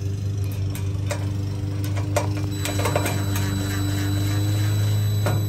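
DeWalt 20V MAX cordless drill driving screws into a metal leg base, its motor whining and rising slightly in pitch, with scattered clicks. A steady low hum lies underneath.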